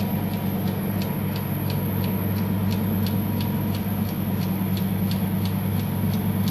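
A machine running with a steady low hum and a regular light ticking, about three ticks a second.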